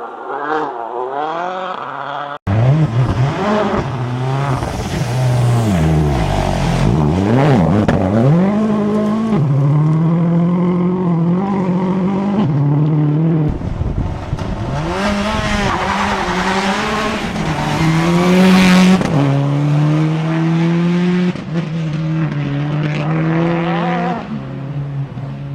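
Rally car engines revving hard on a gravel stage, pitch climbing and dropping in steps through gear changes and sliding down as the cars go past, with tyre and gravel noise. An abrupt cut about two and a half seconds in.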